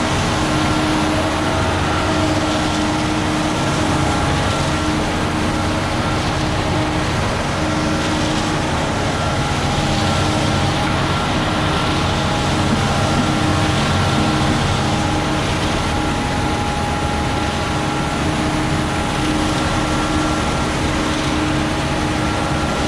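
Diesel engine of a Terex FD4000 front-discharge concrete mixer truck running steadily at raised revs, turning the mixing drum, with a steady whine over the low rumble.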